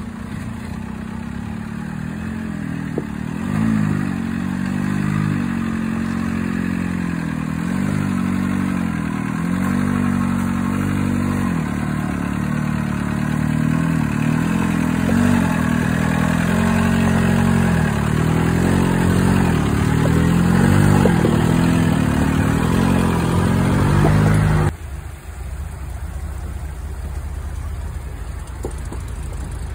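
Volkswagen TDI turbodiesel in a Willys jeep revving up and down again and again as it crawls over rocks under load. About 25 seconds in it cuts off abruptly, leaving a quieter, lower engine sound.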